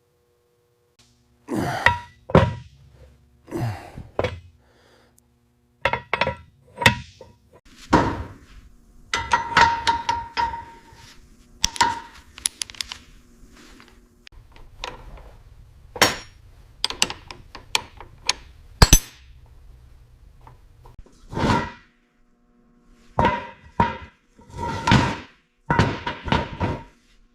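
Irregular knocks, thuds and metallic clinks of hand tools and metal parts being handled, some ringing briefly.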